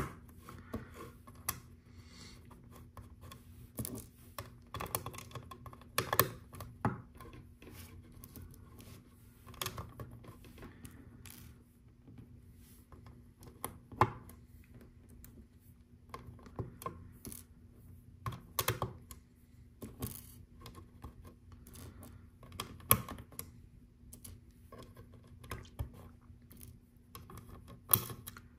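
Small plastic LEGO pieces clicking and tapping in an irregular run as round 1x1 tiles are picked from a loose pile and pressed onto the studs of a LEGO Art panel, over a faint steady hum.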